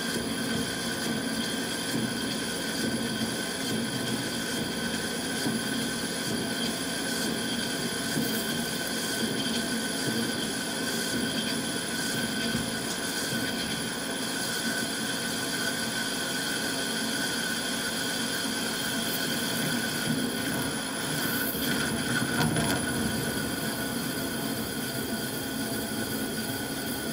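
Small CNC lathe turning a nylon rod: the spindle and drive run with a steady whine of several high tones over a low hum as the tool cuts.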